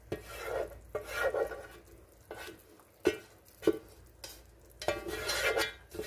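A spatula scraping a thick, wet seasoning mixture out of a metal pan into a pot of soup, with about six sharp knocks of the spatula against the pan.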